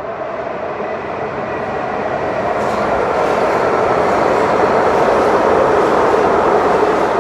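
A train passing close by: steady noise of the wheels running on the rails, building over the first few seconds and then staying loud.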